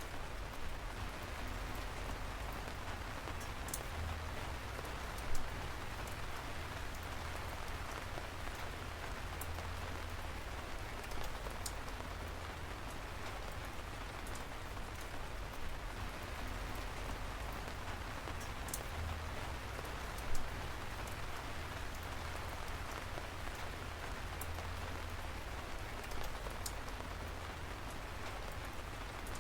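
Steady rain falling, with scattered sharp drip taps; two louder taps stand out, about five seconds in and about twenty seconds in.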